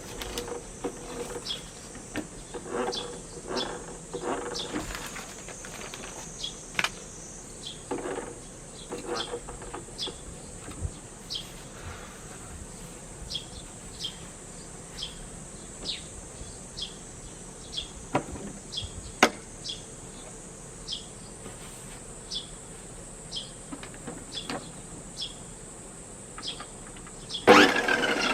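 Steady high insect hum with short chirps repeating about once a second. Near the end, a much louder whirring machine starts abruptly: the electric reel mower switching on.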